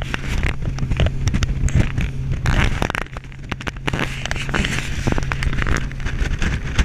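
RIB boat's engine running steadily under way across open water, with rushing wind and water noise and many irregular knocks and crackles.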